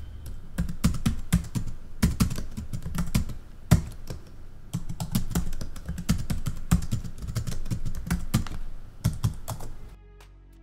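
Typing: rapid, irregular keystrokes in short runs, stopping near the end.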